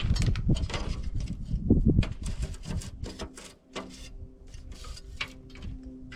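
Crinkling and rustling of new window screen mesh being handled and laid over the frame: a dense run of sharp clicks and scrapes in the first two seconds, then scattered ones.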